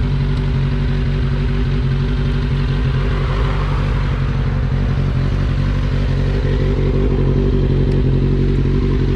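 Kawasaki Ninja 600 sport bike engine idling steadily, swelling slightly near the end.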